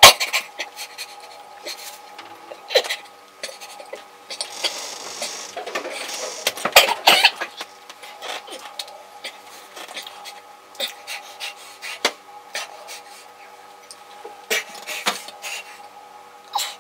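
A man gasping and choking, with short breathy gasps that are thickest around the middle, among scattered clicks and knocks; a faint steady hum underneath.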